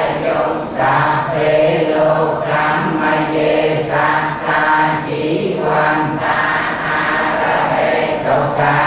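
Buddhist monks chanting a blessing together, many male voices on a steady low monotone, held in long phrases with short breaks for breath.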